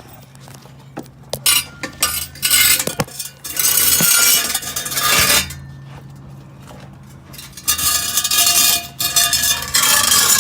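Metal scraping and clanking on a car's exhaust pipe, in two long harsh spells with a ringing metallic edge, over a steady low hum.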